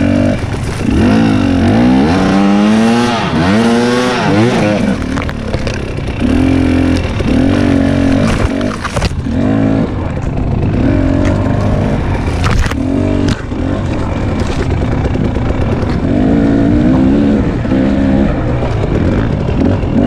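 Husqvarna TX 300 two-stroke dirt bike engine being ridden hard on a tight trail: revs climb and fall quickly in the first few seconds, then the throttle is opened and shut in short stabs. A few sharp knocks are heard partway through.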